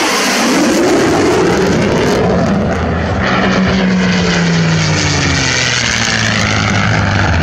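Propeller airplane flying past with its engine running loud, the engine note sliding down in pitch as it goes by.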